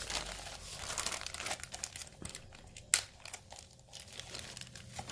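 Packaging crinkling and rustling in the hands as the next piece of jewelry is unwrapped, with one sharp click about three seconds in.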